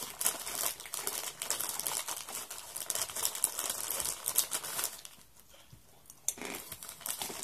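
Plastic snack wrapper crinkling as fingers dig into the packet: a dense run of crackles, a lull about five seconds in, then more crinkling near the end.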